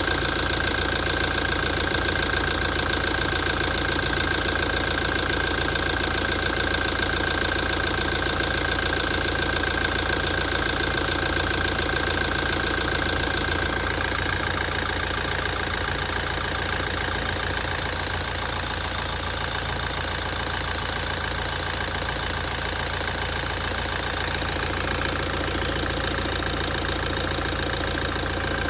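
2017 Toyota engine idling steadily, with a constant high-pitched tone over the engine sound that shifts slightly about halfway through. This is the engine noise the owner noticed after a major service.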